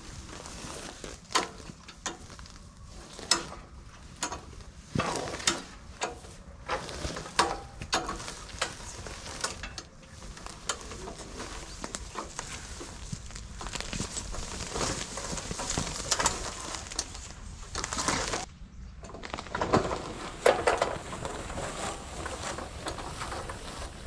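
Irregular knocks, clicks and rustling of handling work, with no engine running.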